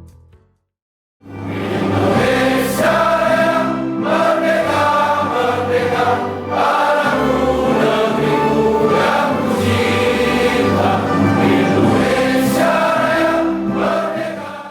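A choir singing a song with musical accompaniment. It starts after about a second of silence and fades out near the end.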